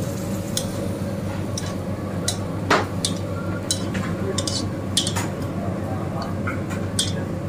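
Metal spatula scraping and clinking against a karahi wok as chicken karahi curry is scraped out into a steel serving bowl: about ten sharp clinks, the loudest about three seconds in, over a steady low hum.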